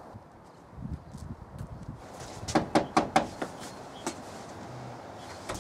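Knocking on a front door: a few soft thuds, then four quick, sharp knocks about two and a half seconds in, and one lighter tap a second later.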